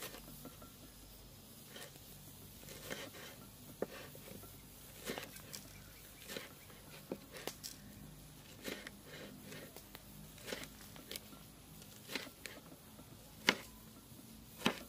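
Steel cleaver chopping a red bell pepper on a wooden chopping block: irregular sharp knocks about once a second as the blade slices through and hits the wood, with two louder knocks near the end.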